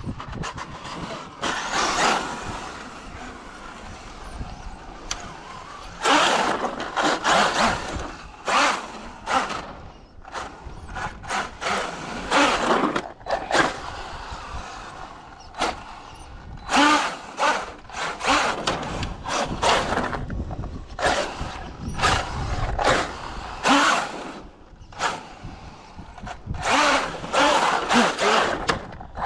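A Traxxas UDR RC truck's brushless electric motor whines in short throttle bursts every few seconds. Its tyres rattle over wooden boardwalk planks as it drives back and forth close by.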